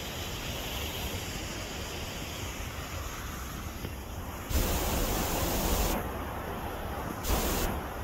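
Steady rushing of water from a partly frozen waterfall. About halfway through, and again briefly near the end, louder buffeting on the microphone as the phone is swung in the wind covers it.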